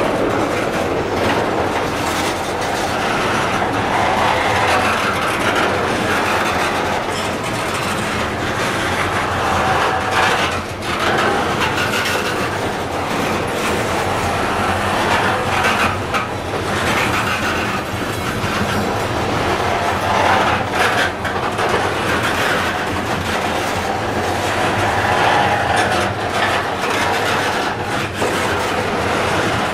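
Covered hopper cars of a Norfolk Southern freight train rolling past on street-running track, with steady rolling noise from the steel wheels and irregular clacks and knocks as they pass over the rail joints.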